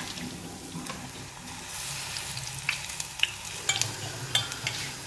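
Battered vegetable pieces frying in hot oil in a small non-stick pan, sizzling steadily, while a slotted spatula stirs them with short scrapes and taps against the pan.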